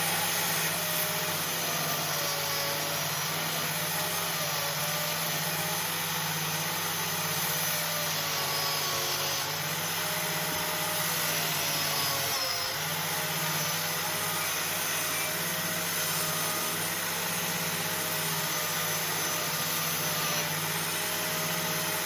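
Angle grinder motor running steadily at one speed, driving a mini lathe attachment as it turns a small metal workpiece, with a rasping scrape from the cutting. There is a brief dip in the sound about twelve and a half seconds in.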